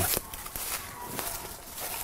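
Footsteps of several people walking through grass, with a squirrel dog barking faintly in the distance at the tree.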